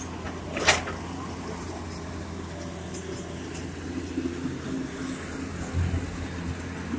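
Diesel engines of earthmoving machinery running steadily with a low hum, and one sharp clank just under a second in.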